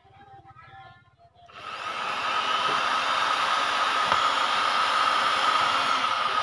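Corded electric drill starting up about a second and a half in and running steadily with a high whine as it bores into a toilet-brush handle.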